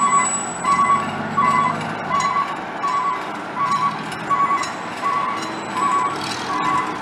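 Fire truck backup alarm beeping steadily, about one beep every 0.7 seconds, as a truck reverses into the station. A truck engine runs slowly underneath.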